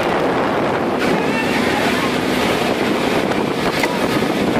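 Steady, loud working noise aboard a purse-seine fishing boat hauling its net and loading fish into the hold, with wind buffeting the microphone.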